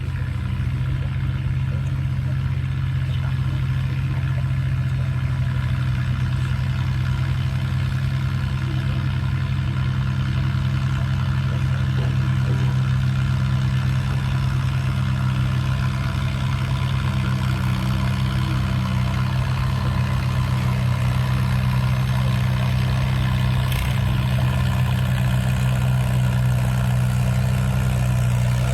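1954 Allis-Chalmers WD45 tractor's four-cylinder engine running steadily while pulling the weight sled, getting a little louder toward the end.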